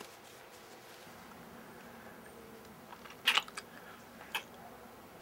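Two people kissing: a few short, wet lip smacks a little past three seconds in and one more about a second later, over faint room tone.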